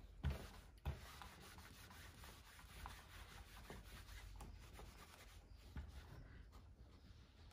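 Small iron sliding and rubbing back and forth over cotton patchwork on a felt pressing mat, faint, with two soft knocks early, within the first second.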